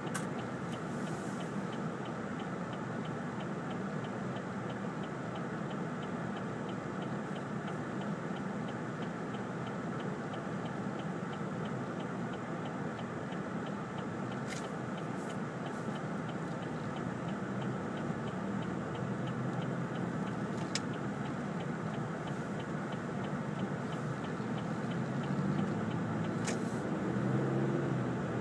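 Car interior sound while stopped in traffic and then pulling away: a steady engine and cabin hum that grows louder near the end as the car gets moving, with a faint regular ticking over it. A single sharp click comes right at the start.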